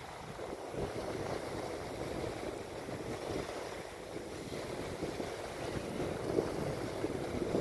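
Wind buffeting the microphone in irregular low gusts, over a steady rush of small waves on the water.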